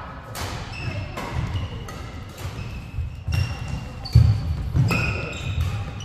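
Badminton rally: sharp racket strikes on the shuttlecock several times, with short high squeaks of court shoes and thudding footsteps on the court floor.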